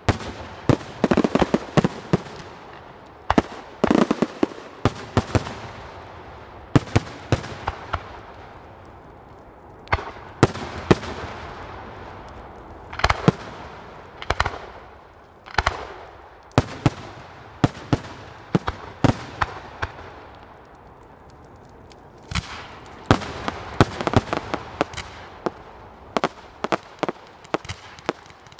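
Fireworks display: clusters of sharp bangs and crackles, each cluster fading away, with brief lulls about a third and two thirds of the way through.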